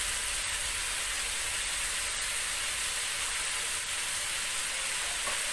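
Ground spice paste frying in hot oil in a wok: a steady, even sizzle.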